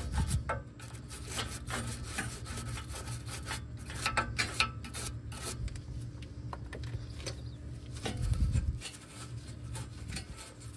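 Nylon bristle brush scrubbing the O2 sensor mounting flange on the exhaust pipe in quick, irregular strokes. The brush is clearing dust and contaminants off the sealing surface for the new gasket.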